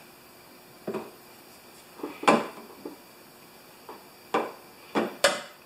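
Hard plastic and metal parts of a snow thrower knocking and clicking as they are handled and fitted by hand: about six separate knocks, the loudest a little past two seconds in, and a quick cluster near the end.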